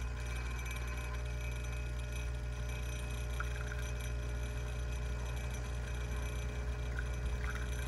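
Saeco SE50 espresso machine humming steadily under its pump as a shot is extracted.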